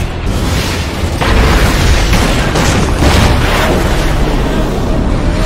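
Loud booming crashes with a heavy, continuous rumble from an animated monster-battle scene's sound effects.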